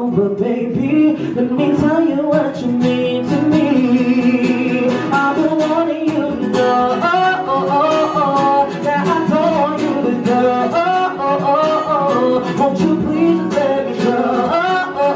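A man singing into a microphone while strumming an acoustic-electric guitar, a live solo performance.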